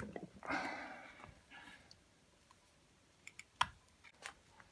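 Handling noise as a small battery is brought over and set down on a workbench: a soft rustle, then three light clicks, the sharpest about three and a half seconds in.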